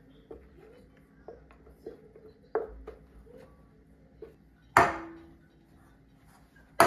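Light clicks, then two loud knocks on a ceramic mixing bowl, each leaving a short ring, as crumbly pie dough is knocked out of a plastic blender jar and cut together with a dough scraper.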